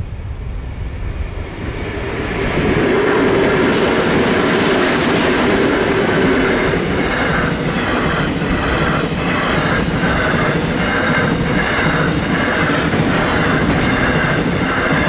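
A diesel-hauled grain train passing close by. It gets loud about two seconds in as it reaches the spot, then the grain hopper wagons roll past with a steady rumble and a regular clatter of wheels over the rail joints, about every two-thirds of a second.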